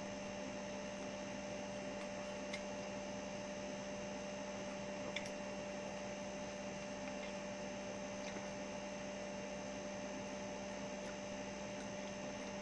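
Steady electrical hum with a faint even hiss, and two faint clicks about two and a half and five seconds in.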